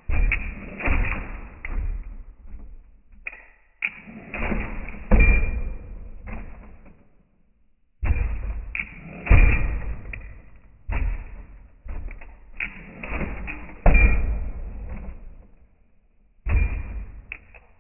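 A lowrider hopper's back bumper banging down on the ground as the car hops: hard thumps and knocks in several quick bursts, with short breaks between them.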